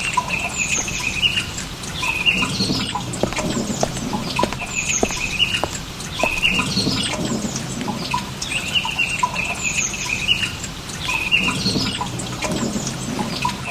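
Forest ambience of small birds chirping, with a short song phrase repeating every two seconds or so.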